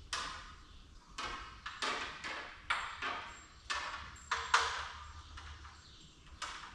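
A series of about ten irregular, sharp metallic clinks and knocks, each fading quickly, as of metal parts or tools being handled.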